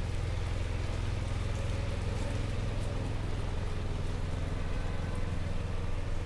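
Steady low rumble of outdoor street noise with a light patter over it, as on a Manhattan street in a snowstorm.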